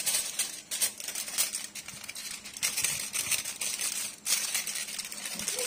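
Aluminium foil crinkling and crackling as hands fold and crimp it closed around a wrapped fish parcel, in an irregular run of crackles.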